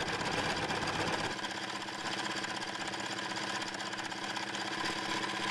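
Small metal lathe running, its motor and drive giving a steady hum with a fast, even rhythmic pulse, while a lathe tool takes a light facing cut on a metal sector arm mounted to the faceplate. The lowest rumble drops away about a second in.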